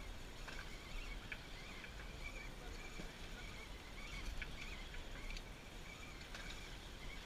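Water slapping against a small fishing boat's hull, with a few light knocks over a low steady rumble.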